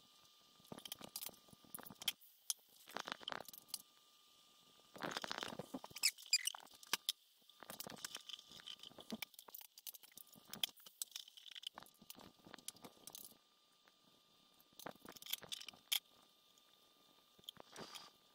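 Light kitchen clatter: a metal palette knife and cutlery clicking, tapping and scraping against a frying pan and plates, in short scattered bursts with a louder cluster about five seconds in.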